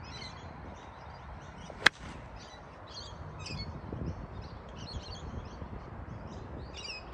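Golf 8-iron striking the ball: one sharp, crisp click about two seconds in. Small birds chirp repeatedly throughout.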